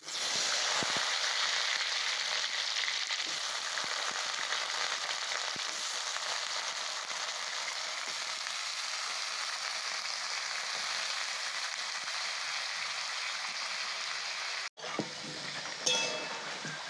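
Small-diced potatoes frying in hot mustard oil in a kadai: a steady sizzle. About fifteen seconds in it breaks off for a moment, then the sizzle carries on with a few light clinks of stirring.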